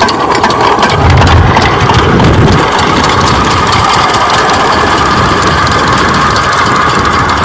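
12 HP single-cylinder diesel water-pump engine running with a steady, even knock. It gets louder and deeper for a couple of seconds about a second in, then settles back.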